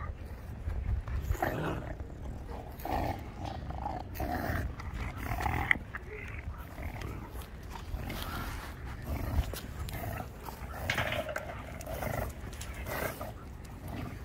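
Shar Pei puppies growling and grunting in play, in short, irregular bursts, with a few small clicks and scuffs.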